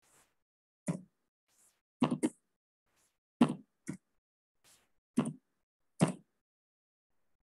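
Computer keyboard keystrokes: about seven sharp taps at uneven intervals, some in quick pairs, as numbers are typed in.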